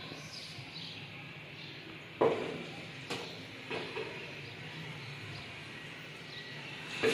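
A spatula scraping and knocking against a metal cooking pot as thick halwa is scooped out onto a plate, with the sharpest knock about two seconds in and a few lighter ones after, over a faint steady hum.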